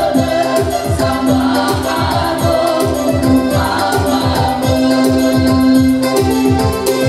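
A small group of women singing together in unison through handheld microphones and loudspeakers, holding long notes over a fast, steady beat from a Technics KN7000 arranger keyboard.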